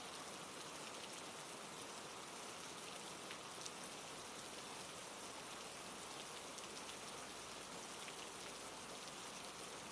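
Steady hiss of falling water, a waterfall or rain ambience recording, with faint scattered drip-like ticks.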